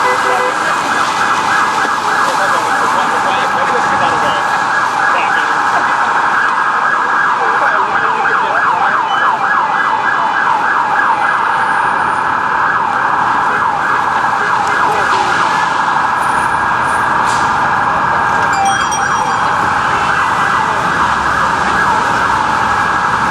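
Police emergency vehicle's electronic siren sounding a loud, fast yelp: a quick rising-and-falling sweep that repeats several times a second without a break.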